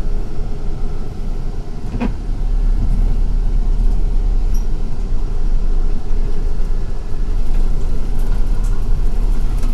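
City bus running, heard from inside the cabin: a steady low engine and road rumble, with a single sharp knock about two seconds in.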